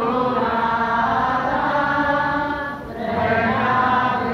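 Voices singing in long held, chant-like notes, with a short break about three seconds in before the next phrase.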